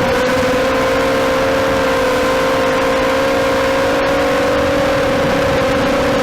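FPV drone's electric motors and propellers whining steadily over rushing wind noise, the pitch creeping slightly higher as the throttle rises.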